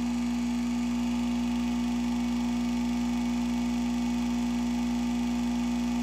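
Faceting machine's electric motor running with a steady, even hum.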